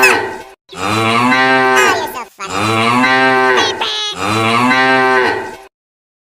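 Long, low animal calls used as a notification tone: the end of one call, then three more in a row, each about a second and a half long.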